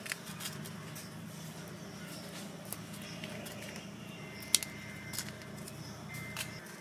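Dried red chillies being broken by hand and their stems snapped off: light crackling of the dry pods with scattered small clicks, the sharpest about four and a half seconds in.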